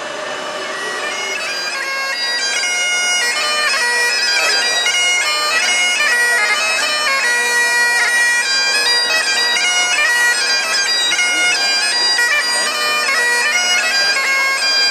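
Bagpipe music: a stepping melody over a steady drone, fading in over the first couple of seconds.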